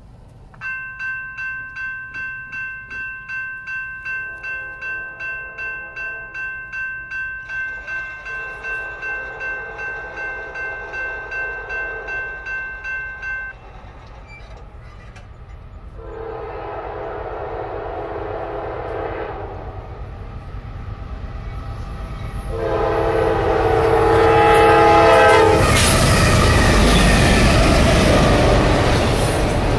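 Grade-crossing warning bell ringing about twice a second, stopping about halfway through. Over it an approaching freight train's lead GE AC44C6M locomotive sounds its horn in four blasts, each louder than the last. Near the end the locomotives reach the crossing and the loud rumble and clatter of the passing train takes over.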